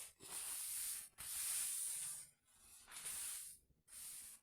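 Hissing in about four bursts, each roughly a second long, with short silent gaps between them.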